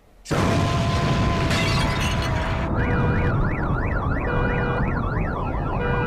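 Cartoonish sound effects for a dad's sneeze: a brief hush, then a loud explosion blast with shattering, and from about three seconds in a siren yelping rapidly up and down, about four times a second.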